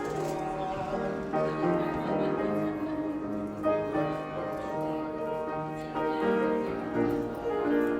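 Hymn music played on a piano, chords changing about once a second.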